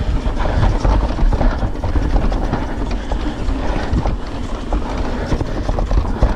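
YT Decoy electric mountain bike riding down a dirt trail: a constant loud rumble of tyres on the ground, with rapid rattling and clattering from the bike over bumps.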